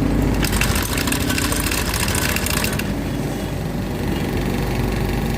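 Motorcycle engine running steadily with a fast, high-pitched rattle from about half a second to nearly three seconds in. This is the strange noise the video traces to the CVT transmission.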